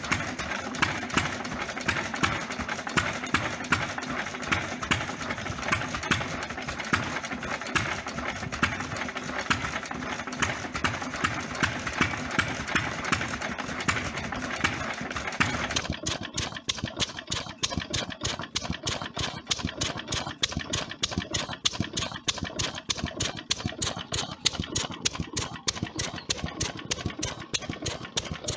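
Vintage stationary engines running, with a regular beat of firing strokes about one and a half a second. About halfway through the sound changes to a Ruston & Hornsby stationary engine running with quick, even beats about four a second.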